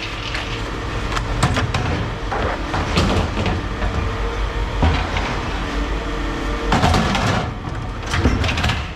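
Steady running of an engine or machine, with irregular clanks, knocks and a scrape of scrap metal being handled about seven seconds in.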